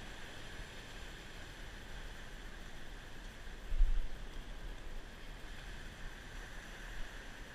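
Wind buffeting the microphone over a steady wash of surf breaking on the rocks below, with a louder low bump about four seconds in.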